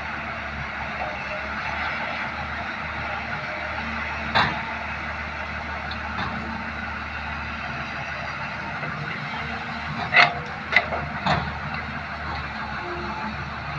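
Excavator's diesel engine running steadily, with a sharp knock about four seconds in and three more in quick succession about ten seconds in.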